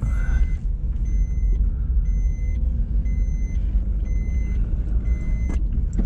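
Car engine and road rumble heard from inside the cabin, steady and low, with an electronic warning beeper sounding about once a second from about a second in. Each beep is a high, thin tone about half a second long.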